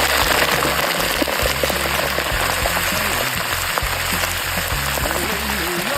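Hot oil sizzling and crackling steadily as large spiders deep-fry in it.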